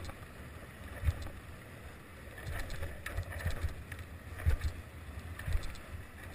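Longboard wheels rolling over asphalt, a steady rumble with low thumps every second or so, and some wind on the microphone.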